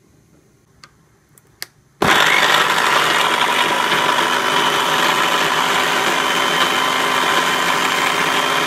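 Electric blender switching on about two seconds in and running steadily at full speed, chopping chunks of apple and orange for juice. A few faint clicks come before it starts.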